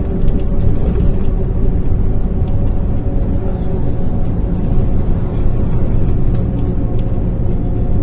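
MAZ-105 city bus heard from inside while driving: a steady heavy low rumble of engine and road, with a few faint steady tones above it and occasional light clicks and rattles.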